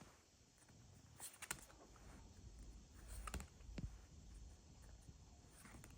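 Near silence with a few faint clicks and rustles from a Pokémon card booster pack being opened and the cards handled, in two small clusters about a second and about three seconds in.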